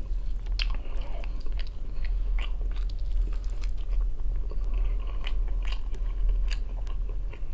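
A person chewing mouthfuls of smoked turkey leg meat close to the microphone, with irregular wet clicks from the mouth and from fingers pulling the meat apart, over a steady low hum.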